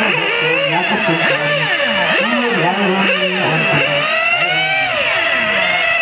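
Several radio-controlled touring cars racing, their motor notes overlapping and rising and falling in pitch as they accelerate and slow for the corners.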